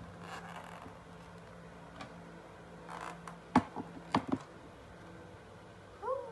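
A glass plate and an upturned aluminium foil pan knocked and tapped on a tiled counter while a steamed egg cake is turned out of the pan: a few sharp clinks and knocks, the loudest about halfway through.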